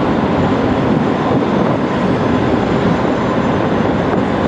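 Boeing 777's twin jet engines, a loud steady rumble as the airliner flies past in a display.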